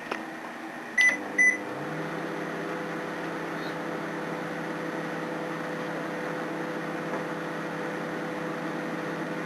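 Microwave oven's keypad beeping twice as it is started, then the oven running with a steady hum.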